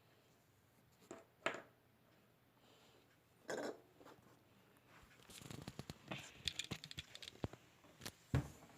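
Handling noise: scattered clicks and taps, then a busy run of rustling and clicking from about halfway, with one louder thump near the end.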